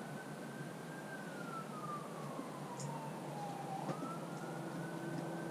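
Faint emergency vehicle siren wailing: a pitch that rises quickly, falls slowly over about three seconds, then rises again about four seconds in.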